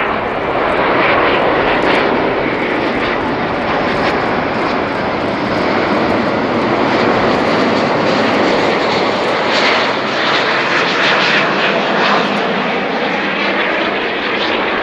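An Airbus A350-900's Rolls-Royce Trent XWB turbofans on final approach: a loud, steady rushing jet noise as the airliner passes close by just before touchdown.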